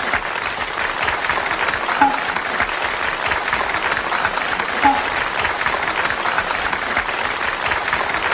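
A steady, dense hiss with a fine crackling texture, and a short chirp repeating about every three seconds.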